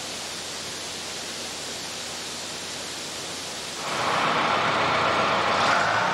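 Steady even hiss of shop ambience inside a locomotive engine house. About four seconds in, a louder steady engine running sound takes over.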